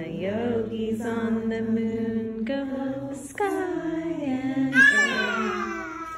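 A voice singing a slow tune in about five long held notes, each lasting roughly a second.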